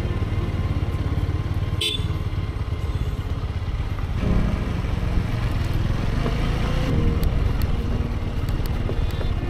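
Motorcycle engine running at low speed on a dirt road, its pitch rising and falling with the throttle. A brief high squeak about two seconds in.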